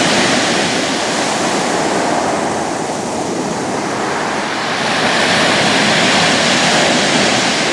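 Loud, steady rush of sea surf and wind at a beach, with wind buffeting the microphone; it eases a little midway, then swells again.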